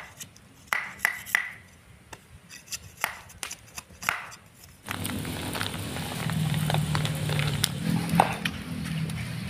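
Irregular sharp strokes of a small knife cutting by hand. About five seconds in this gives way to the steady bubbling of a wok of land snails boiling over a wood fire, with scattered crackles.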